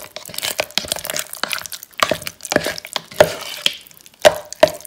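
A spoon stirring crushed coffee jelly into thick drained yogurt in a bowl: irregular wet clicks and scrapes against the bowl's sides, with a few louder knocks.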